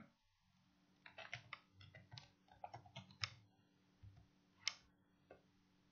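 Faint keystrokes on a computer keyboard: a quick run of taps lasting about two seconds, then a single sharper click and one fainter one near the end.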